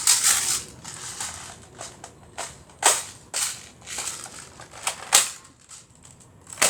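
Airsoft AR rifle being handled during a magazine reload: about five sharp plastic-and-metal clicks and clacks, the loudest about three and five seconds in, with softer rustling and handling noise between.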